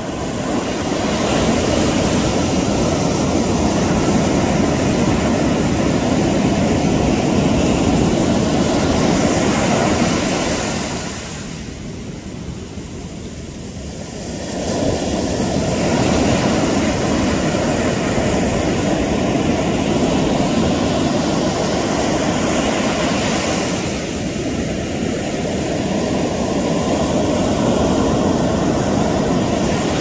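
Pacific Ocean surf breaking and washing up a sandy beach: a steady rush of breaking waves that eases off for a few seconds near the middle, then swells again.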